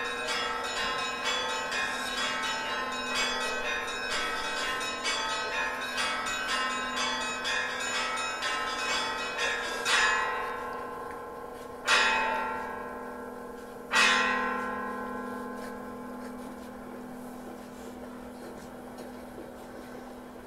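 Church bells ringing: a quick run of small bells struck two or three times a second, then three heavy strikes about two seconds apart, each left to ring out and fade.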